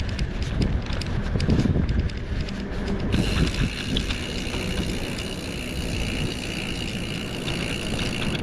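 Riding a mountain bike: wind rumbling on the microphone, with short rattles and clicks from the bike in the first few seconds. About three seconds in, a steady high hiss joins the rumble.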